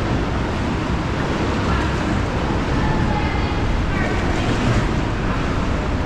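Steady wind rumbling on the microphone over the wash of sea water around the kayaks.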